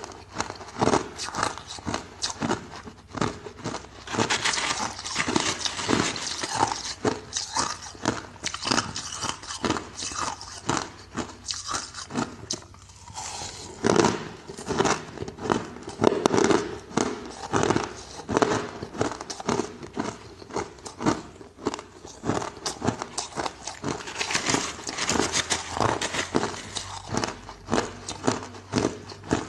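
Ice being bitten and chewed close to the microphone: dense, irregular crunching and cracking, with a brief lull about halfway through.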